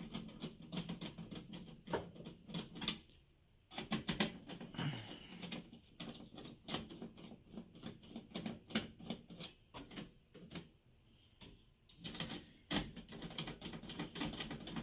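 Parts being handled inside a computer case: a run of irregular light clicks and taps, with short pauses.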